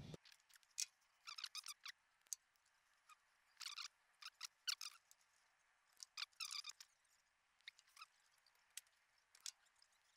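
Faint, scattered small clicks and scratchy handling sounds, a few each second or two, as hands work electrical wires into Wago lever connectors.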